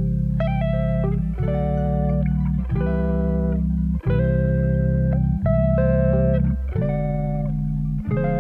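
Background music: a guitar-led instrumental over a steady bass line, the chords changing about every second.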